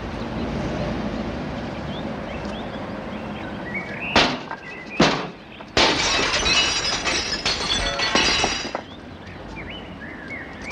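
A glass window pane struck with a cloth-wrapped object: two sharp knocks, then the pane smashes, with broken glass crashing and tinkling for about three seconds.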